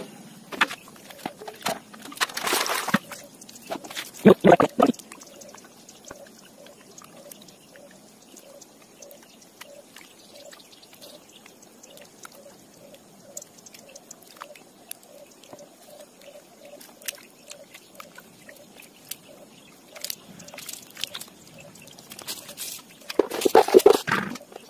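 Wild mushrooms being washed by hand in water: splashing and sloshing, with louder splashes a couple of seconds in, again about four seconds in, and near the end, and faint drips and clicks in between.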